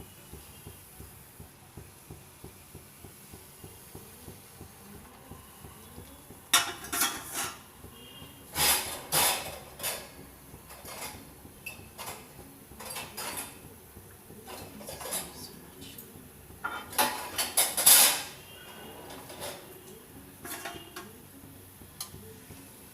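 Metal kitchen utensils clinking and clattering against a pan of frying oil. The clinks come in irregular clusters starting about six seconds in, loudest near the middle and again near the end.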